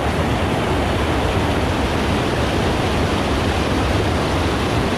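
Steady, loud rush of fast river water churning white over shallow rapids.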